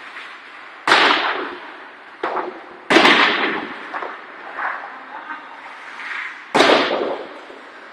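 Ice hockey stick and puck impacts: three loud, sharp cracks with a smaller knock between the first two, each ringing out in the echo of an indoor ice rink.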